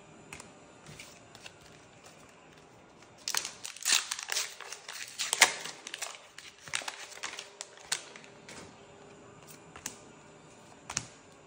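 Trading-card booster pack wrapper crinkling as it is opened and crumpled, in a dense crackly run about three seconds in, followed by scattered light clicks and snaps as the newly opened cards are handled and sorted.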